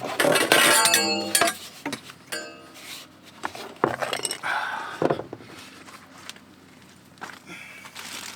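Hard objects clinking and rattling as they are handled, loudest in the first second and a half, then a few scattered clinks and knocks until about five seconds in.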